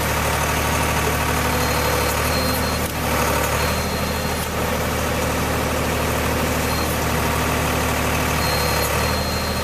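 Engine of a rail-mounted hydraulic tie inserter running steadily, with a thin high whine that comes and goes several times.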